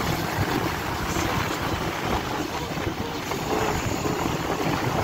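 Wind rushing over the microphone on a moving motorbike, over the bike's engine running at road speed.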